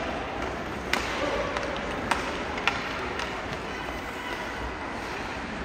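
Basketball game in a gym: a steady crowd murmur with a few scattered sharp knocks of a basketball bouncing on the court.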